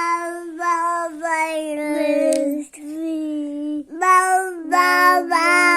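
A baby vocalising in long, drawn-out pitched notes, with brief breaks about two and a half and four seconds in.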